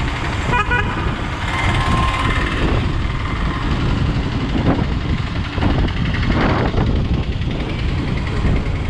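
Motor scooter being ridden through street traffic: a steady engine and road noise under heavy wind rumble on the microphone, with a brief high tone about two seconds in.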